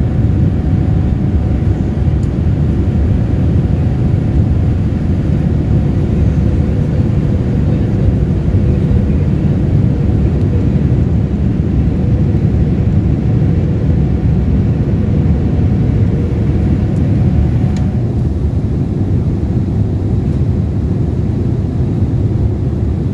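Steady cabin noise inside a Boeing 787-8 in flight: a loud low rumble of airflow and its Rolls-Royce engines, with a faint steady hum over it.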